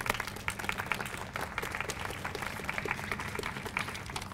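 A small group applauding, with separate hand claps standing out in an irregular patter.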